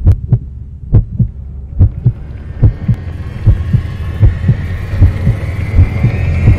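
Film soundtrack sound design: a deep heartbeat-like double thump, repeating a little more than once a second. From about three seconds in, a high drone slowly rises in pitch and swells beneath it, building tension.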